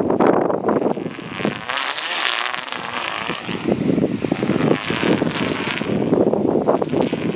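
Strong wind gusting and buffeting the microphone, with a whoosh that rises and falls several times, fitting a stunt kite sweeping through the air.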